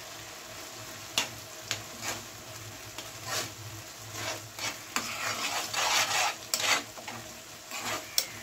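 A spatula stirring and scraping through thick simmering kheer of grated potato and apple in milk in a non-stick frying pan. Irregular strokes start about a second in over a faint steady simmer, and are busiest and loudest near the middle and toward the end.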